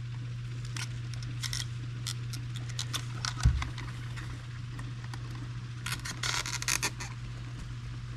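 Small clicks, creaks and scraping of hard plastic as the snap tabs of a KRX fuel pump module are wiggled and worked loose by hand. There is a single thump about three and a half seconds in and a denser run of scraping around six to seven seconds, over a steady low hum.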